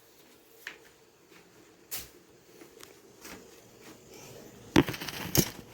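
Light clicks and knocks of things being handled in a kitchen, with a short burst of louder clattering knocks near the end.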